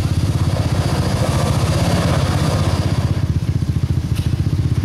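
Toyota Tacoma pickup's engine running at low speed under load as it crawls over rock, a loud, even pulsing. A gritty crackle, tyres on rock and dirt, for the first few seconds, and one sharp click about four seconds in.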